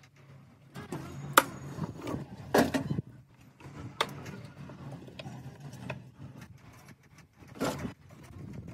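Plastic car headlight housing being pried apart by hand: a few sharp clicks and snaps of clips and brackets, with handling and rubbing noises between, over a low steady hum.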